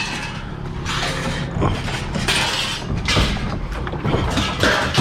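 Excavator unloading scrap metal: its diesel engine runs steadily under repeated bursts of scraping and clanking metal.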